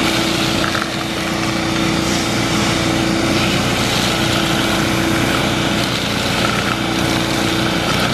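Small gasoline engine running steadily at a constant pitch, with an even rushing noise from a prospecting vacuum whose hose is sucking concentrate out of a drywasher's riffle tray.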